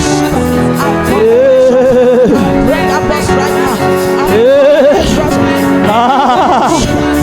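Worship backing music with steady held chords, and a voice over it singing long wavering, sliding notes without clear words.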